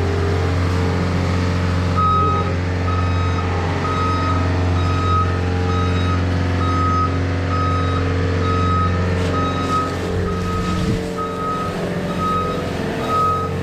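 A farm machine's engine running steadily, with its reversing alarm beeping in an even series from about two seconds in as it backs up.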